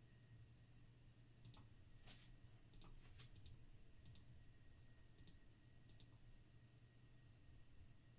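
Faint computer keyboard and mouse clicks, about ten scattered through the first six seconds, over a low steady hum.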